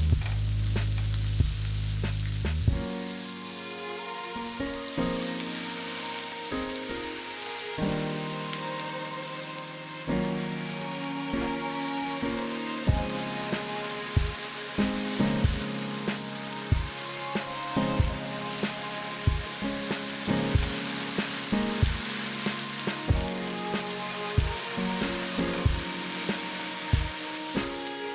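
Food sizzling in a frying pan, a steady hiss with occasional clicks from a utensil, under soft instrumental background music.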